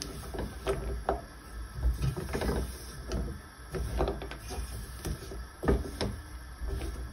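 Silicone spatula stirring pieces of milk chocolate in a stainless steel saucepan: irregular scraping with hard chunks clacking against the pan, a few sharper knocks among them.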